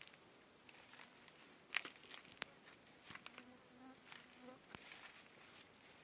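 Quiet ambience with a flying insect buzzing briefly past a little after the midpoint, a short low hum. Scattered sharp clicks and crackles, the loudest about two seconds in.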